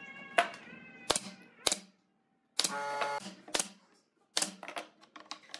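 Pneumatic brad nailer shooting nails through pine slats into a board, with wooden slats knocking as they are handled: about seven sharp clacks, broken by two brief dead gaps. A short pitched tone sounds near the middle.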